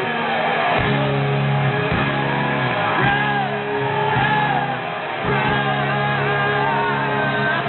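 Live rock band playing loudly in a hall, with a singer's wavering, held notes over sustained chords that change about every second. The recording is dull, with no treble.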